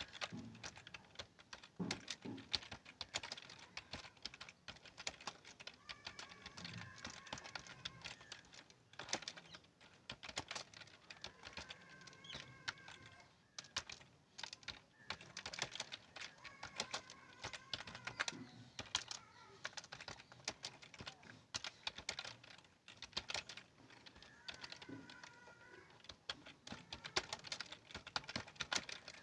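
Continuous fast typing on a keyboard: a steady, irregular stream of key clicks.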